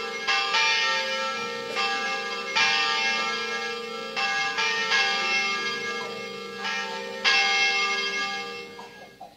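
Church bells ringing: several bells of different pitch struck one after another every second or two, each ringing on over the last. The last strike comes about seven seconds in, and the ringing dies away near the end.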